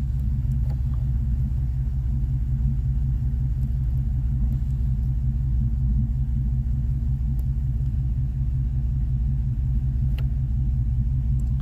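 Chevy 350 small-block V8 idling steadily, heard from inside the truck's cab, with one sharp click about ten seconds in.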